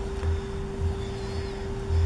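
Background music with a steady low beat, about two thumps a second, over a held tone.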